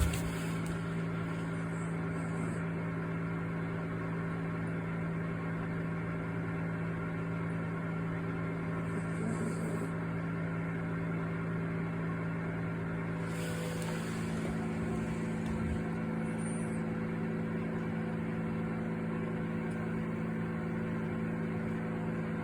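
Dishwasher running: a loud, steady machine hum with a few held tones. About 13 seconds in, a brief hiss rises and the hum's tone shifts slightly.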